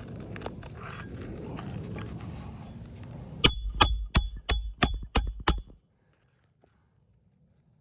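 A run of about seven sharp metallic strikes with a bright ringing tone, about three a second, then quiet.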